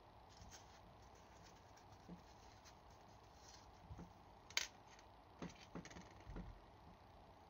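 Faint handling noises of small metal lighter parts and a cotton swab against a metal tray: scattered light clicks and taps, the sharpest click a little past halfway, with a few soft knocks after it.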